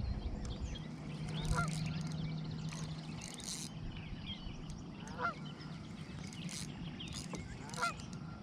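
Geese honking: a few separate short calls, each a quick rising note, spread several seconds apart.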